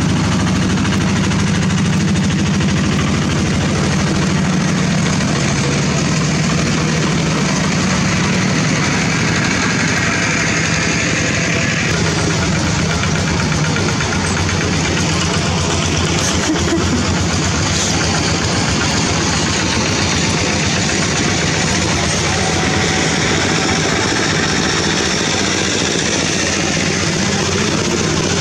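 Several two-wheel walking tractors' single-cylinder Kubota diesel engines running together with a steady, even knocking beat.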